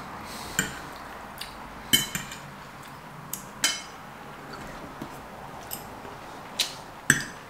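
Metal forks clinking and scraping on ceramic plates during a meal: about ten short, irregular clinks, the loudest about two seconds in and near the end.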